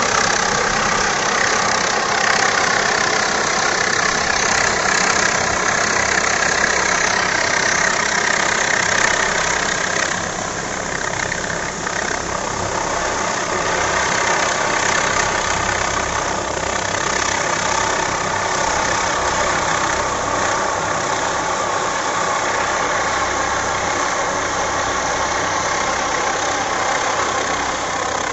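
Helicopter flying low overhead: steady turbine whine over the rotor's rushing noise, easing slightly about ten seconds in.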